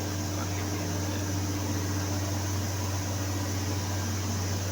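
Steady machinery running with a low hum and an even fan-like hiss, unchanging throughout.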